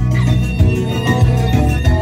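Live dance music from an electronic keyboard played through PA speakers, with a steady bass beat under held melody notes.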